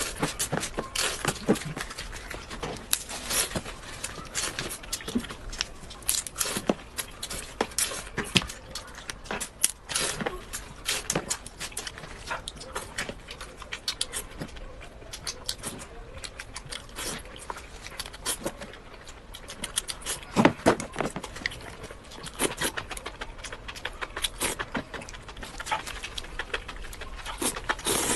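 A person eating close to the microphone: a dense, irregular run of chewing clicks and mouth smacks, with a louder cluster about two-thirds of the way through.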